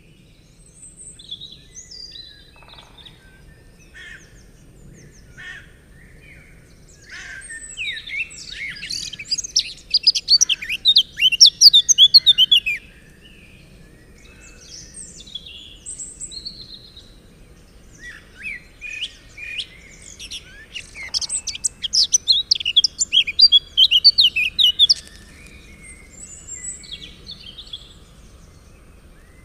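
Songbirds singing: two long, loud bursts of rapid high notes, the first about seven seconds in and the second about eighteen seconds in, with scattered shorter chirps and calls between them.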